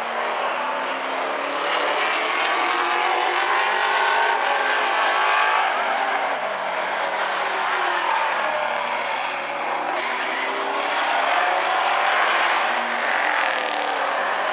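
A pack of street stock race cars running flat out around a short oval, several engine notes overlapping and rising and falling as the cars accelerate and pass.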